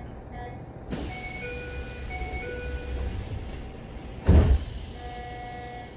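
Train door-closing chime playing a repeating pattern of short tones, then the car's sliding doors shutting with a loud thump about four seconds in; a few more chime tones follow.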